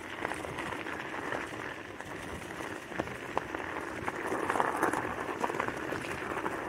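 Kick scooter tyres rolling over a gravel trail strewn with dry leaves: a steady rough rolling noise with many small scattered clicks and crunches.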